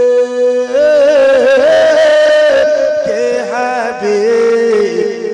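A man singing a naat, an Urdu devotional poem, into a microphone. A long held note gives way, about a second in, to a wavering, ornamented melodic run, over a steady droning note held underneath.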